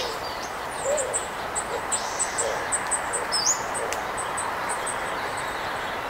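Mourning dove cooing: a run of soft, low hoots. Over it, a small bird gives short, high, thin chip notes again and again.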